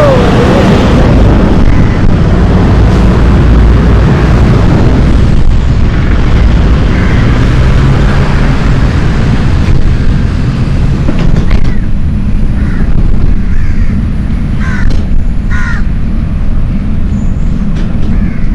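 Wind buffeting the microphone of a moving bicycle, a loud steady rumble. A few short bird calls come through in the second half.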